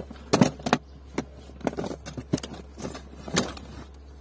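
Catches of a hard-shell tool case clicking open, then metal sockets and tools clattering and jangling as a hand rummages through the case's tray, in a run of separate sharp clicks.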